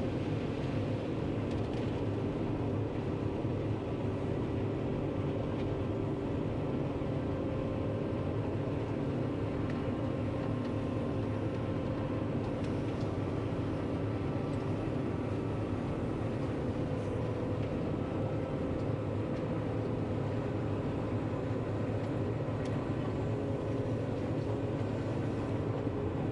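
John Deere 9500 combine running steadily while shelling corn, heard from inside the cab: a constant machine drone with several steady humming tones and no breaks.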